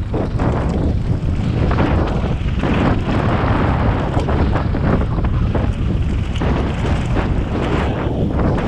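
Wind buffeting the microphone of a camera riding on a mountain bike going fast down a dirt and gravel trail, over a steady rumble from the tyres. Irregular short rattles come as the bike crosses bumps.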